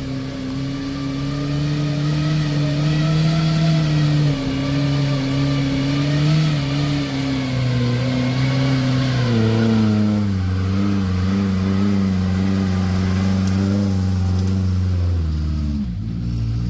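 Small 4x4 off-road vehicle's engine revving hard, its pitch wavering up and down. About ten seconds in it drops to a lower, steadier pitch, then falls away near the end.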